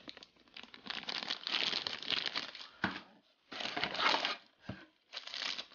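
Clear plastic accessory bags crinkling in the hands in several bursts with short pauses, with a couple of light clicks as items are taken from the box.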